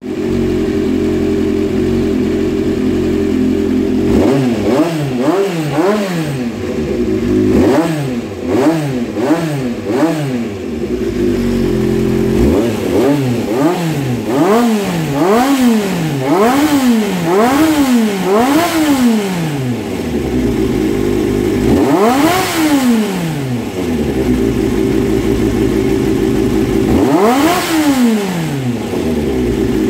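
Honda CBX400F's air-cooled inline-four engine running on freshly overhauled carburetors: it idles steadily, then from about four seconds in the throttle is blipped over and over, each rev rising and falling back, followed by a run of higher revs and two single long revs with steady idle between. It is a running check of the rebuilt, adjusted carburetors.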